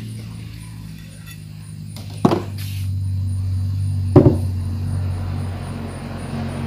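Handling noises from a metal air-rifle barrel and its packaging: two sharp knocks, about two and four seconds in, the first followed by a short rustle, over a steady low hum.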